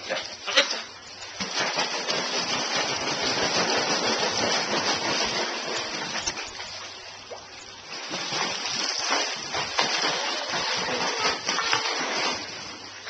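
Pool water splashing and churning from a child's flutter kicks on a kickboard, in two stretches with a brief lull between. A single sharp click sounds about half a second in.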